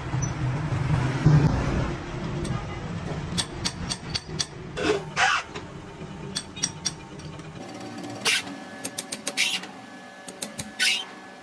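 Sharp metal clinks and a few short scrapes as a threaded steel shaft is handled and clamped in a lathe's jaw chuck. A low hum sits under the first two seconds.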